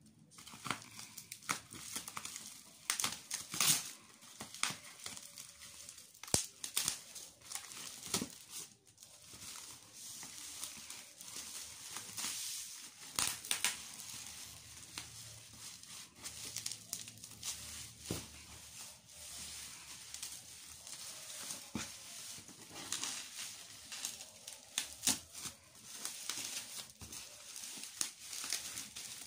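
Plastic bubble wrap crinkling as hands pull it off a cardboard box, with many sharp crackles in an uneven stream.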